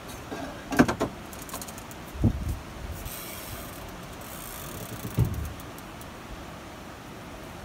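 Steady rush of river water and wind around a boat, with three dull knocks about one, two and five seconds in from fishing gear being handled as a bent sturgeon rod is worked.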